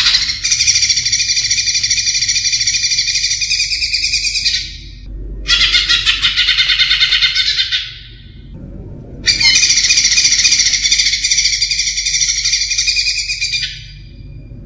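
Green leafbird (cucak ijo) singing in three long bouts of fast, high-pitched song, each a few seconds long, with short pauses between.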